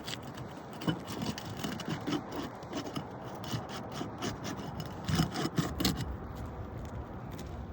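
Roof shingle tabs being pried loose from their seal: irregular scraping and crackling, busiest about five to six seconds in, then stopping.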